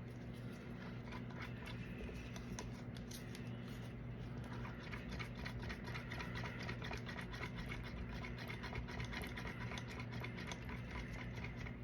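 Stir stick scraping and ticking against a plastic cup as epoxy resin and pigment are mixed, with many small fine scrapes throughout and a steady low hum underneath.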